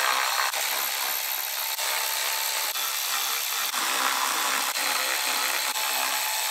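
Cordless electric ratchet running steadily, its motor whirring as it spins out the lower intake manifold bolts.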